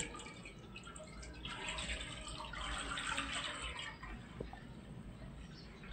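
Milk pouring in a steady stream from a jug into a nonstick wok, splashing as the pan fills; louder from about a second and a half in to about four seconds in.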